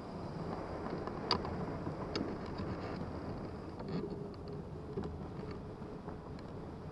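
Steady rush of airflow over a wool-covered camera microphone on a hang glider in flight, with scattered faint clicks and ticks.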